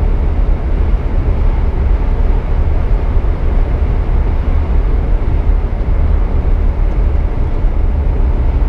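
Scania semi-truck driving at road speed, heard from inside the cab: a steady low rumble of engine and road noise.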